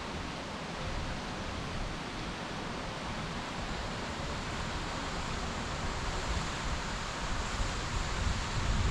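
Wind on the microphone: a steady rushing hiss with irregular low buffeting.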